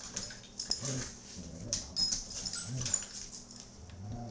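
Dogs at rough play: short low growls come again and again, mixed with claws clicking and scrabbling on a tile floor.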